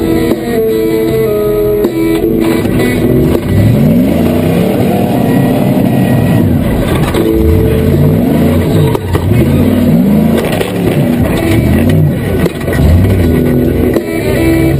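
A rock-crawler buggy's engine revving in repeated short bursts, each rising then falling in pitch, under background guitar music.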